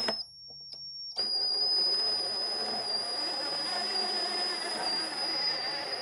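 18-volt DeWalt cordless drill powering a wooden-geared caddy. The trigger is blipped briefly a couple of times, then from about a second in the motor runs steadily with a high whine. The wooden gear train and wheels rumble along underneath.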